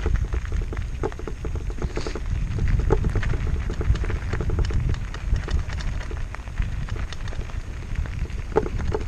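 Mountain bike rolling over a loose gravel road: tyres crunching on stones with many small irregular clicks and rattles from the bike, over a steady low rumble of wind on the microphone.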